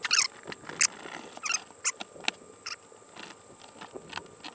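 Fillet knife cutting along a northern snakehead's body on a plastic cutting board: irregular crunching clicks and scrapes as the blade works through skin and rib bones, louder in the first two seconds and lighter afterwards.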